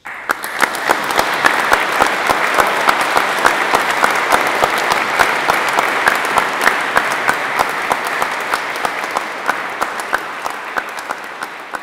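Audience applauding in a church, breaking out suddenly from silence at the close of a choral piece. The clapping is dense and even, then slowly thins and fades toward the end.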